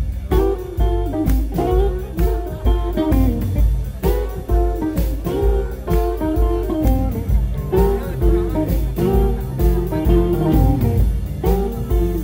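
Live blues band playing, an electric guitar leading over electric bass and drums with a steady beat.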